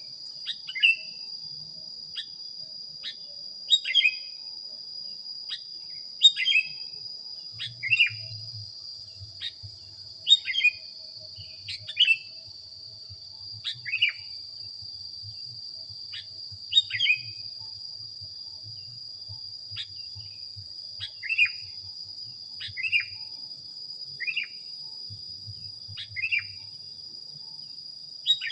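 Sooty-headed bulbul (kutilang) calling: short, sharp chirps about every one to two seconds, each dropping in pitch. A steady high insect-like whine runs underneath.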